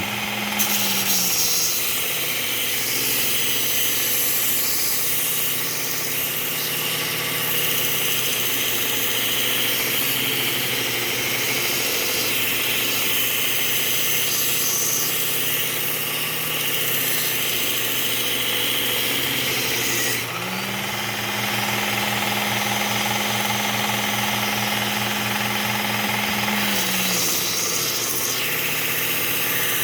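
Powered belt sharpener running with a Cubitron 120-grit abrasive belt while a blade is ground on it, a steady hiss of grinding over the motor's hum. The hum steps down in pitch about a second in, rises again about 20 seconds in, and drops once more near the end.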